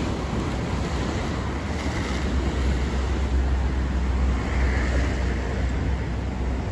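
Atlantic Ocean surf: a steady wash of breaking waves, with wind buffeting the microphone in a deep rumble that grows stronger a few seconds in.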